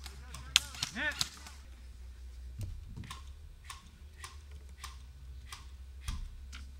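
Airsoft rifle fired shot by shot: about ten sharp pops roughly half a second apart through the second half, after a brief muffled voice and a few handling clicks about a second in.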